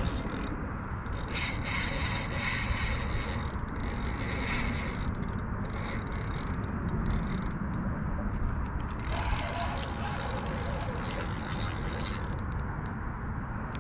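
Fishing reel working under the load of a hooked stingray, making a steady mechanical scraping and ticking, with wind rumbling on the microphone.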